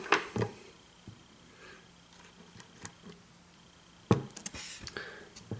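Lock picks and a tension wrench clicking and tapping in a padlock while it is being picked: a few faint ticks, then a cluster of sharper metallic clicks about four seconds in.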